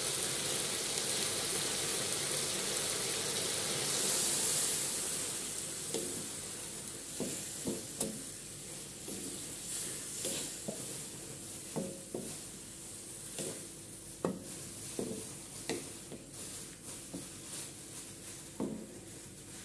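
Pork pieces sizzling in a hot aluminium wok, the hiss strongest in the first few seconds and then dying down. A wooden spatula then scrapes and knocks against the wok in short irregular strokes as the meat is stir-fried.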